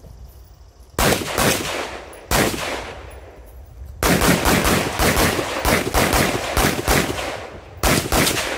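Gunshots echoing across the range: a single shot about a second in, another just over a second later, then a fast string of about a dozen shots and one more near the end.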